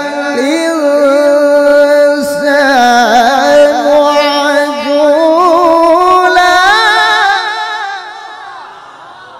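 A man reciting the Quran melodically into a microphone: one long, ornamented phrase of drawn-out wavering notes, with a brief break about two seconds in. Near the end the melody climbs higher, then dies away.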